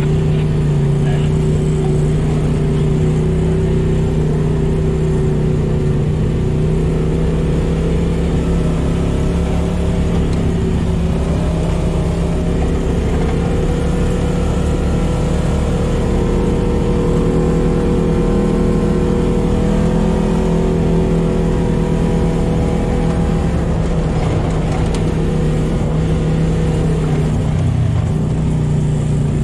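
Polaris RZR side-by-side's twin-cylinder engine running at a steady trail speed, heard from inside the cab over the rattle and crunch of a dirt track. Its pitch rises a little around the middle and drops near the end.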